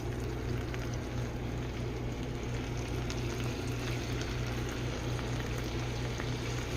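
Catfish frying in melted butter in a pan, a steady sizzle, with the butter not yet fully hot. A steady low hum runs underneath.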